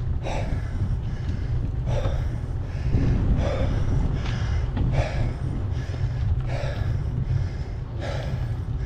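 A cyclist breathing hard and rhythmically while grinding up a steep climb on a mountain bike, a loud gasping breath about every second and a half, over a steady low rumble.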